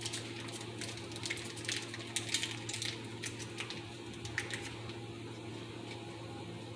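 A spoon stirring thick cheese sauce in a saucepan, scraping and tapping lightly against the pan, with the taps thinning out near the end. A steady low hum runs underneath.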